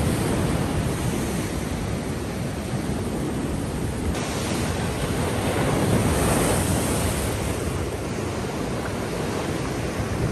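Ocean surf washing and breaking over a coastal rock ledge, a steady rush that swells a little partway through. Wind buffets the microphone.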